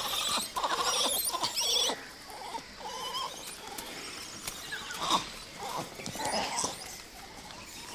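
Hanuman (gray) langurs calling, a troop reacting to an infant that has fallen and seems injured. A dense flurry of calls in the first two seconds, then scattered single calls over faint high chirping.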